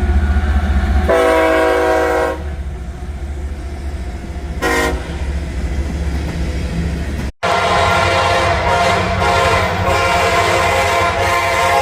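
Locomotive horns over the heavy rumble of a train: a chord blast of about a second, then a short toot. After an abrupt break about seven seconds in, a horn sounds long and steady.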